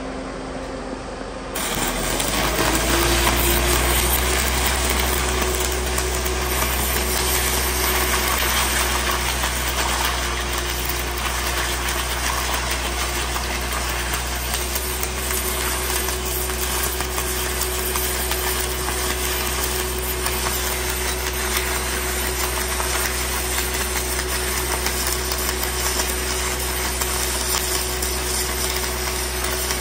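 A bundle of five 1/8-inch 7018 stick electrodes is struck at 800 amps about a second and a half in. The arc then burns with a loud, steady crackle and hiss over the hum of the engine-driven welder working under the load.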